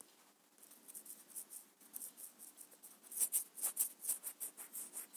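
A finger or stylus rubbing quickly across a tablet touchscreen while erasing handwriting. Short scratchy strokes come about five a second and grow louder about three seconds in.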